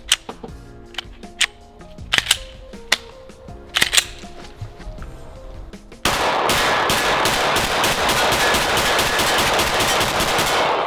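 Background music, then about six seconds in a rapid string of 9mm pistol shots from a Canik Mete SFX Pro begins. The shots come several a second and run together until the end.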